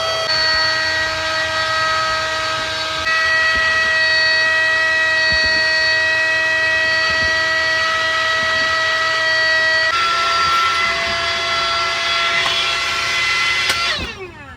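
Electric air pump running with a steady high whine that shifts in pitch a few times as its load changes, then is switched off near the end and spins down with a falling whine.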